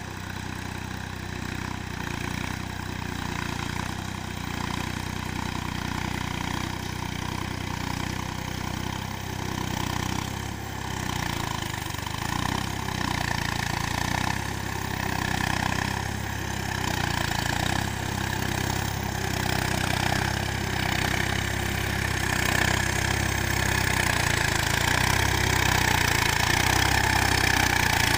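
Tractor diesel engine running steadily as the tractor churns through a flooded paddy field on cage wheels, growing louder as it comes closer.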